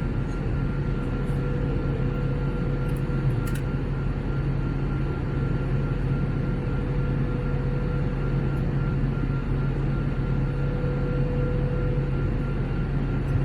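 Steady cabin noise of an Airbus A321neo in flight: a constant rush of airflow and the drone of its Pratt & Whitney geared turbofan engines, with a low hum and two faint steady whining tones.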